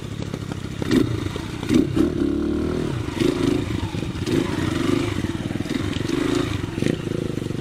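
KRY200 dirt bike engine running at low revs, its pitch rising and dipping a little.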